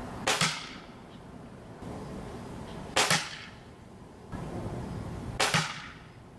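Three shots from a Gamo Bone Collector Maxxim .22 pellet rifle, about two and a half seconds apart, each a sharp, quick double crack.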